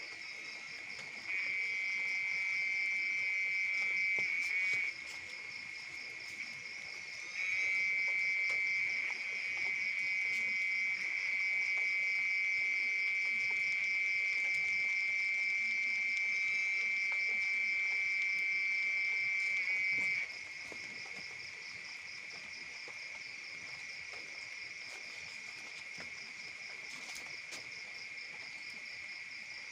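Night insect chorus, a steady high trilling throughout. One louder, nearer trill starts about a second in, breaks off at about five seconds, then resumes and runs on until about twenty seconds in.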